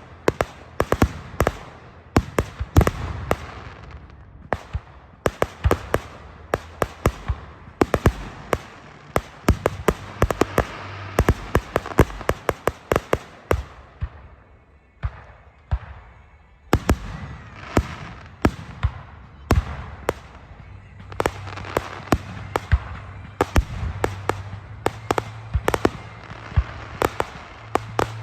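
Fireworks going off: a rapid, irregular string of sharp pops and bangs, often several a second, easing to a brief lull about halfway through before picking up again.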